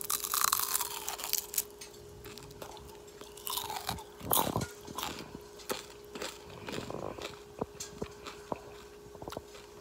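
Crispy, golden-brown fried lumpia (Filipino spring roll) bitten into close to the microphone: a run of loud, crackly crunches in the first second or so, then chewing with scattered smaller crunches.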